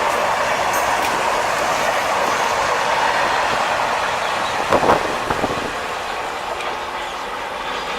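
Wagons of a fast goods train rolling past: a steady rush of wheels on rail that fades over the second half, with a couple of knocks about five seconds in.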